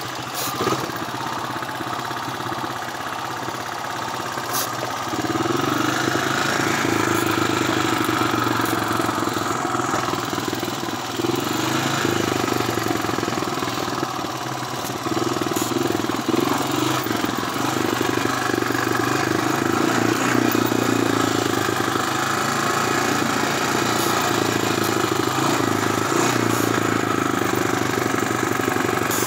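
Honda ATV engine running steadily as the quad goes down a steep, rocky trail. It gets louder about five seconds in and rises and falls a little after that, with occasional knocks from the rough ground.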